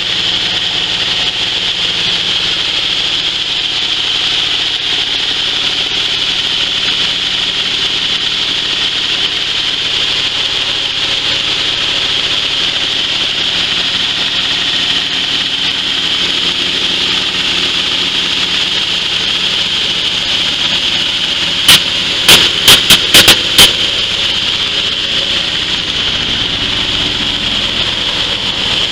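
Coffee huller (dry-coffee husking machine) running steadily while hulling dried coffee: an even, loud mechanical noise with a strong hiss. About three-quarters of the way through, about six sharp knocks come in quick succession over some two seconds.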